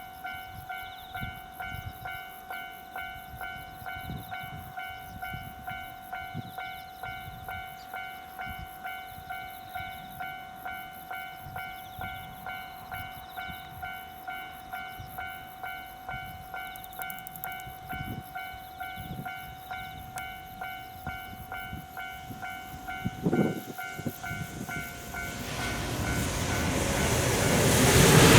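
Railway level-crossing warning bell ringing steadily at about two strokes a second, with a short horn blast about 23 seconds in. Over the last few seconds an approaching freight train hauled by an EF510 electric locomotive grows louder and covers the bell.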